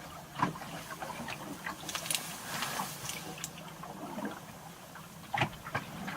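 Water gurgling and trickling along a sailing boat's hull while under way, heard from inside the cabin, with scattered small clicks and knocks.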